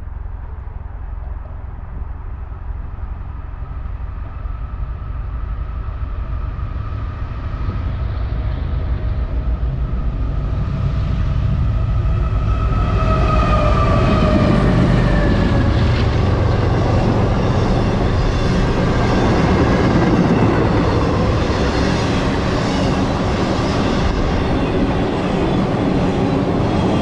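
A CSX intermodal train's lead GE diesel locomotives (ET44AH and ES40DC) approaching and passing: a low rumble grows steadily louder, a few tones drop in pitch as the locomotives go by about 14 seconds in, and then the steady rumble and wheel clatter of the intermodal cars rolling past takes over.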